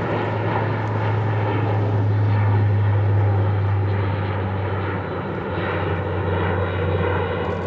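Airbus A400M military transport's four turboprop engines and eight-bladed propellers running, a steady low drone with a stack of steady higher tones above it. The sound dips slightly about five seconds in.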